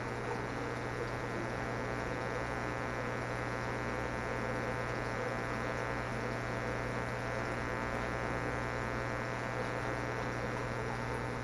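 Steady electrical mains hum, with a constant hiss of noise underneath. It holds at one level with no breaks or changes.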